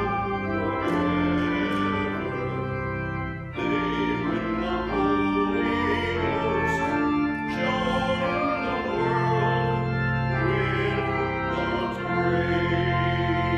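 Pipe organ playing a hymn in sustained, changing chords, with voices singing along.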